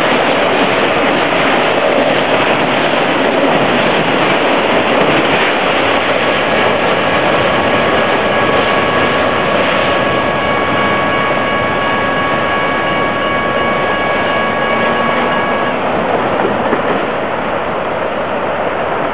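Autorack freight cars rolling past on the rails and then receding, a steady loud rumble and rush. From about six seconds in, a steady high tone with overtones holds for about ten seconds, then stops.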